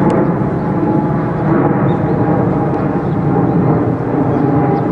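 Boeing 777-300ER's twin GE90-115B turbofans at climb power just after takeoff: a steady, loud jet roar from the airliner as it climbs away.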